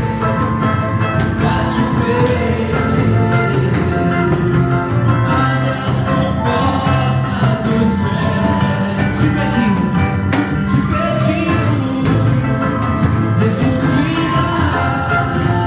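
Samba gospel band playing with singing over a fast, even percussion beat.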